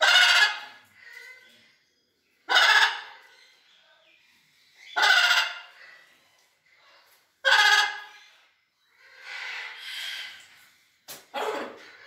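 Blue-and-yellow macaw squawking: four loud, harsh calls about two and a half seconds apart, then softer, shorter calls near the end.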